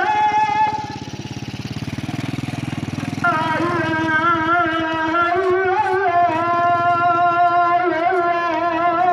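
A long melodic line of held notes with small ornamental wavers: a high note ends about a second in, and a lower note starts about three seconds in and is held through the rest. An engine runs low underneath for the first few seconds.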